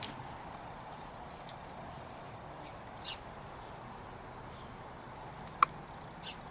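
Quiet outdoor background with a few short, high chirps from small birds and one sharp click about five and a half seconds in.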